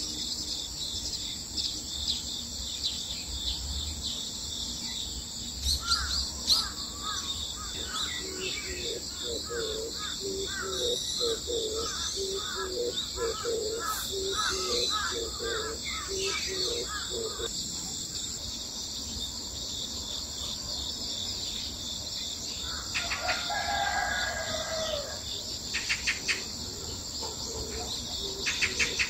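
A steady chorus of crickets trilling, with birds calling over it: a low call repeated about one and a half times a second for several seconds, then a rooster crowing once about two-thirds of the way through, and a few short rattling calls near the end.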